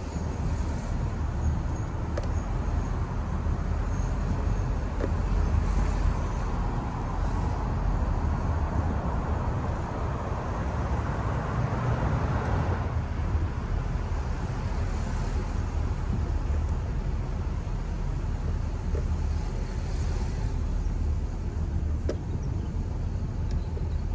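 Car driving along a street: steady low rumble of road and engine noise. A broader hiss swells and fades about halfway through.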